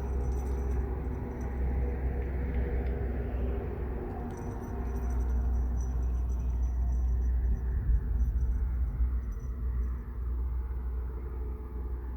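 A steady low rumble with a rushing haze above it, rising and falling slightly in loudness, and faint high chirping that comes and goes.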